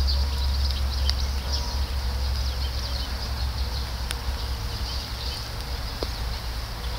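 Outdoor ambience: a steady low rumble with dense, faint high-pitched chirping in the background and an occasional click.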